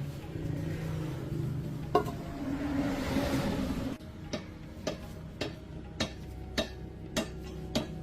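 Sharp taps, likely light hammer taps on metal, repeating evenly about every half second from about halfway in, over a steady low hum; before them a rushing noise with a single sharp knock.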